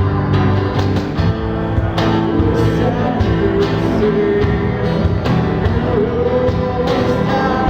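Acoustic band playing live: acoustic guitars over steady cajón beats, with a voice singing the melody.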